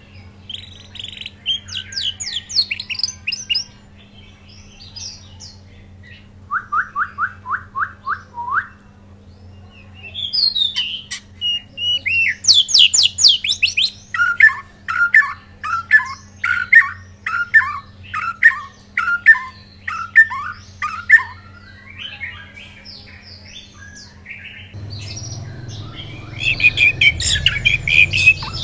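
White-rumped shama singing a loud, varied song: fast high trills, a run of about eight evenly repeated notes, a rapid rising trill, then a long series of repeated downward-sweeping whistles, with busier, harsher calls near the end.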